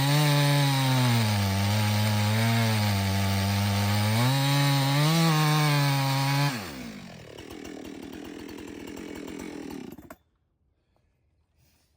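Two-stroke chainsaw cutting through a red oak log, its engine pitch sagging and recovering under load. About six and a half seconds in, the throttle comes off and the pitch falls away to a quieter, lower running. The engine cuts out abruptly near ten seconds.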